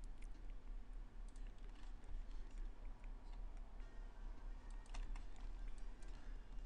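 Computer keyboard keystrokes and clicks, a few scattered light taps, over a steady low hum.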